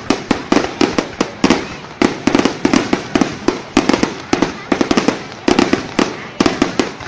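Fireworks display: a steady barrage of sharp aerial-shell bangs in quick, irregular succession, several a second.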